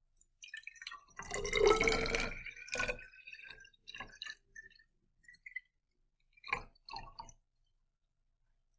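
Water poured from a foam cup into a tall glass graduated cylinder: a short stream splashing in about a second in, then a dribble of separate drips falling into the cylinder, two of them louder near the end.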